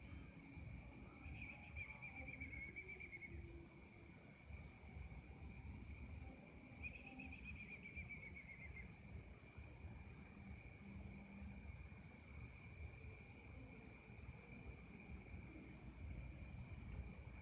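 Faint insect chorus of crickets: a steady high trill and a softer, evenly pulsing chirp above it, over a low rumble. Two short falling, wavering calls stand out, about a second and a half in and again about seven seconds in.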